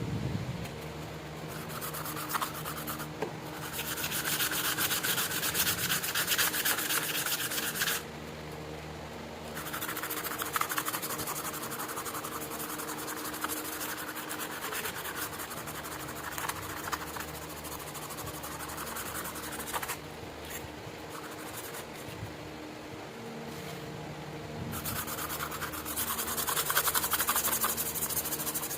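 Rusty steel knife blade being scrubbed by hand with an abrasive to remove rust: a dense, hissy rubbing in spells of several seconds with short pauses between. A faint steady hum runs underneath.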